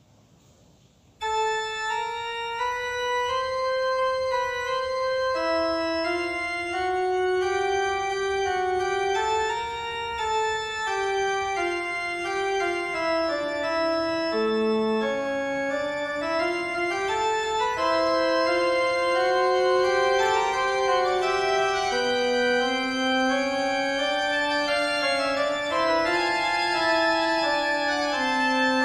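Organ music: slow, sustained chords in several voices with a moving melody, cutting in abruptly about a second in.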